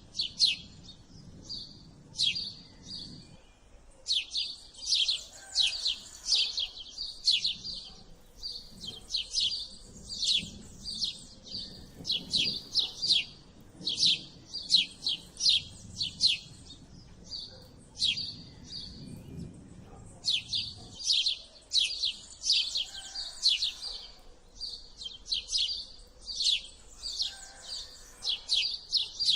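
House sparrows chirping: rapid runs of short, sharp chirps, several a second, broken now and then by brief pauses.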